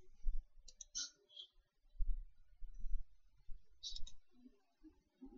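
Carom billiard balls clicking: short groups of sharp clicks of the cue tip and the balls striking one another, once about a second in and again near four seconds. Between them come a few low dull thuds.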